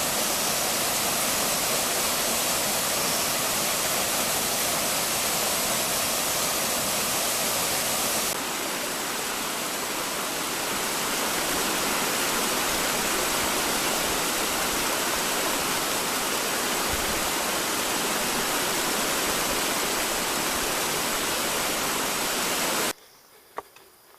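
Waterfall: water falling and rushing as a steady, even noise, dipping a little for a couple of seconds about a third of the way in. It cuts off abruptly near the end, leaving only a few faint ticks.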